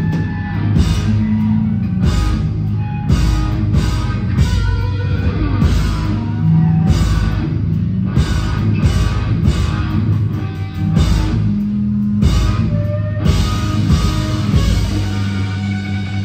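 Rock band playing live: electric guitar and drum kit, with drum and cymbal hits on a steady beat over dense low guitar and bass.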